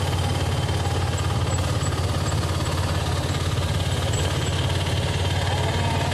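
Engine of a vehicle running steadily at cruising speed, heard from inside the cab along with road noise, a low hum with a fast even rattle.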